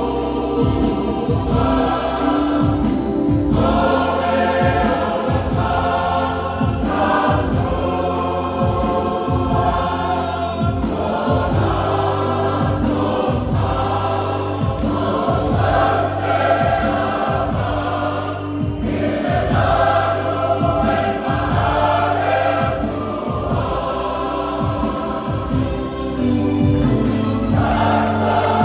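Church choir singing a hymn, with steady low instrumental accompaniment underneath.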